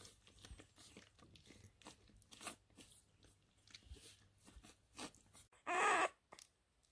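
French bulldog puppy suckling milk from a feeding bottle: quick, irregular wet sucking and smacking clicks. Near the end there is a short, louder burst.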